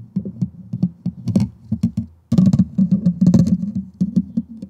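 Fingertips scratching and tapping rapidly on a microphone's metal mesh grille, a dense run of quick scratchy taps. It pauses briefly a little after two seconds, then comes back louder and denser.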